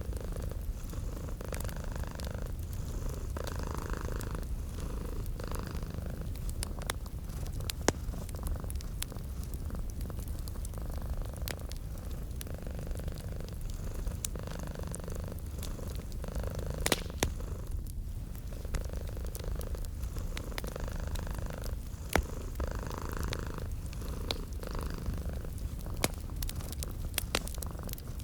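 Domestic cat purring steadily, close up, over a wood fire crackling, with scattered sharp pops from the fire.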